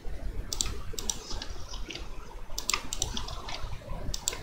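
Computer keyboard keys and mouse buttons clicking in small clusters of a few clicks each, about five groups over four seconds, as Ctrl+R is pressed repeatedly and clicks confirm each cut.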